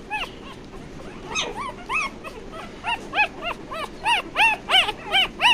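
Newborn pitbull puppy, about 8–10 days old, squealing and whimpering while held in a hand: a string of short high cries, each rising then falling in pitch. They come faster and louder from about halfway through.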